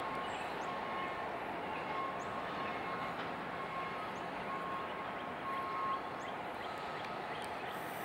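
Freight train rolling away on the rails: a steady rolling noise of the cars' wheels on the track, with a faint high whine coming and going until about six seconds in.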